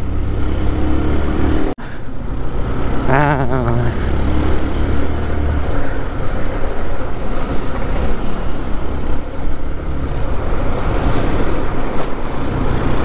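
Motorcycle riding on a road: the engine running with wind rushing over the microphone and passing traffic, steady throughout, cutting out for an instant about two seconds in.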